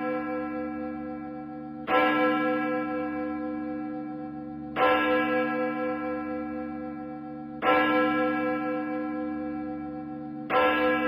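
A single church bell tolling, struck four times at even intervals of about three seconds. Each stroke rings on at the same pitch and slowly fades into the next.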